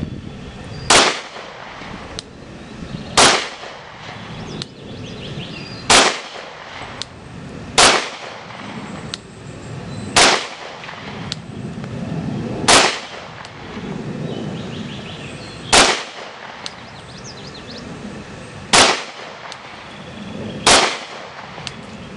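Glock 23 .40 S&W pistol firing nine single shots, about two to three seconds apart, each a sharp report over the outdoor background.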